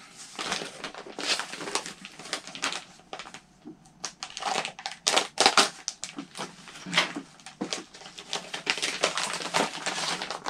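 Paper and packaging crinkling and rustling as a kit manual and its papers are handled and pulled out of the box, with many quick irregular crackles and clicks.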